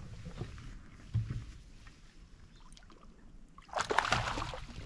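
A hooked fish splashing at the surface right beside a kayak as it is landed: one short, loud burst of splashing near the end. A dull knock on the kayak comes about a second in.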